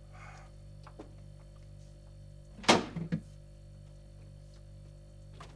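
A steady low hum, with a small click about a second in and a sharp thunk near the middle, followed by a softer knock.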